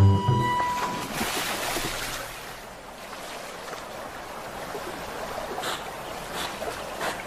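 Water sounds in a beaver pond: a rush of splashing water that fades over a second or so, then soft splashes and lapping about three times as a Eurasian beaver swims. The tail of background music with held notes ends about a second in.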